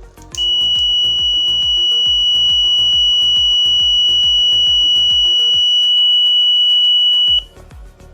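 The 555-timer fire alarm circuit's buzzer sounding one steady, high tone for about seven seconds, starting about half a second in and cutting off suddenly near the end: the alarm triggered by its infrared flame sensor. Background music with a steady beat plays underneath.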